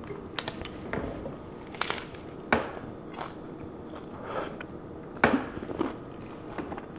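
Close-up crunching of a crispy fried corn taco shell being bitten and chewed: a series of sharp crackles, the loudest about five seconds in.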